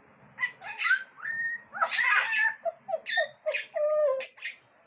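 Pet parrot chattering and whistling: a string of short calls, gliding whistles and a harsher burst about two seconds in, ending with a falling call.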